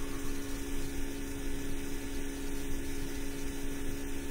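Steady electrical hum with a constant hiss underneath: room tone with no other events.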